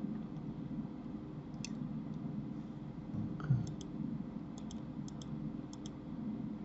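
Computer mouse clicking: a single click, then four quick double-clicks in the second half, with a soft low thump just before the first double-click. A steady low hum runs underneath.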